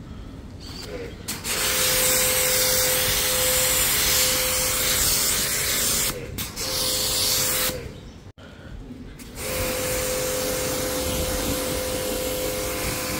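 Pressure washer running with a steady whine, its spray hissing as it pushes foam through a foam cannon and then a plain water jet onto a car's bodywork. The spray starts about a second and a half in. It stops briefly a little after six seconds, then again for about a second and a half near eight seconds.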